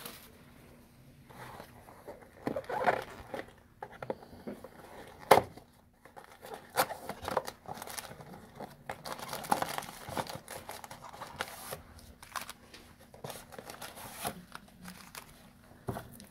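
Plastic shrink-wrap being torn and crinkled off a trading-card box and the cardboard box flaps being pried open, with scattered rustles and clicks and one sharp click about five seconds in.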